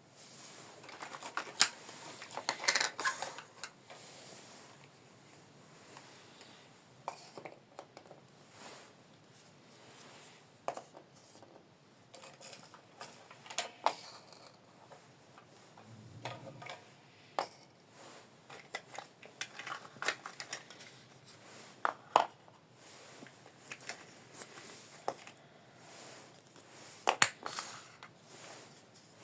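Small plastic toy kitchenware pieces being handled, knocking and tapping against each other in irregular light clicks and taps.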